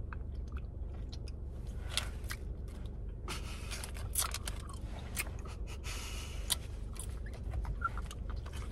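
Plastic taffy wrapper rustling and crinkling as it is peeled back, in short scattered crackles, over a steady low hum.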